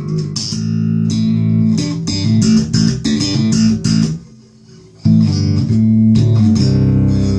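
Alembic Series 2 electric bass played through an amp: a run of plucked notes with sharp, bright attacks, a short break about four seconds in, then a few more notes ending on one held, ringing note.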